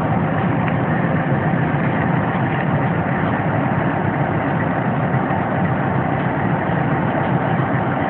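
Diesel-electric freight locomotive idling close up: a steady, even engine rumble with a faint constant hum over it.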